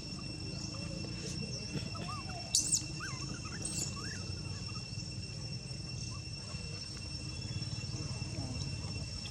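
Outdoor ambience: a steady high insect drone with scattered faint short chirps and squeaks from animals, and a few brief sharp calls about two and a half and three and a half seconds in.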